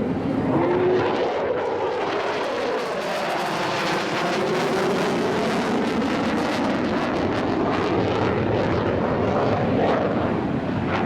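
Jet noise from a Boeing F/A-18F Super Hornet's twin GE F414 turbofans as the fighter flies past during a flying display. The sound is a loud, steady rush, with a sweeping tone in it that falls and then rises again.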